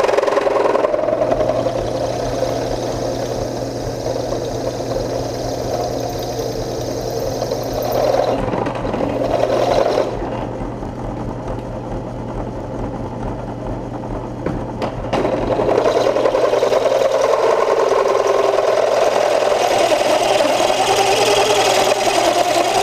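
Drill press driving a 3/8-inch solid carbide bit through hardened 440C stainless steel (58–62 HRC), a steady motor hum under a wavering grinding cutting sound. The cutting grows quieter for about five seconds from about ten seconds in, then comes back louder.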